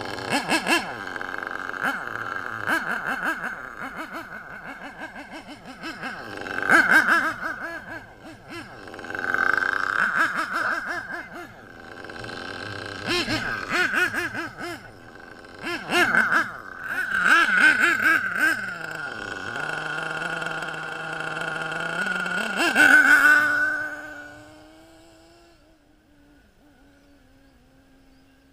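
HPI Trophy nitro buggy's K4.6 HO engine revving in repeated bursts, its buzzing pitch rising and falling as it is throttled up and down. Near the end it fades to a faint, steady drone as the buggy runs far off.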